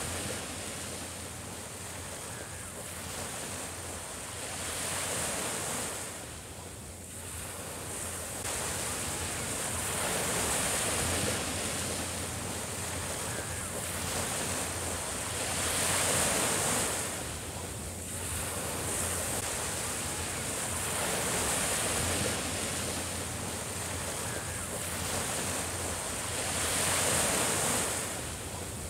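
Small sea waves breaking and washing up a sandy beach, the surf swelling and easing about every five to six seconds.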